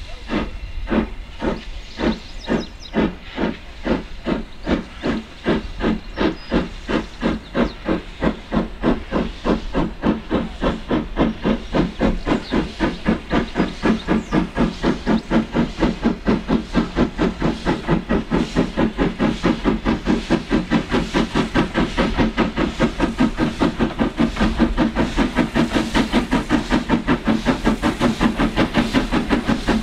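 Steam locomotive 51456, an ex-Lancashire & Yorkshire Railway 0-6-0 saddle tank, pulling away with a passenger train: a steady rhythm of exhaust chuffs that gradually quicken and grow louder as it comes closer.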